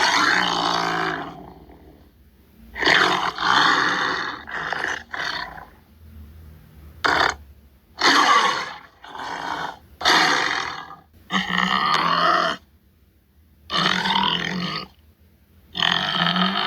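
Tiger roaring and grunting in a series of separate calls, each lasting about half a second to two seconds, with short pauses between them.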